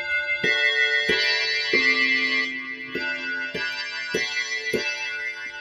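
Korg Kross synthesizer playing an FM bell patch, edited up an octave and down three half steps to imitate a grandfather clock chime. A slow run of about eight struck chime notes, with a short pause near the middle, each ringing on into the next.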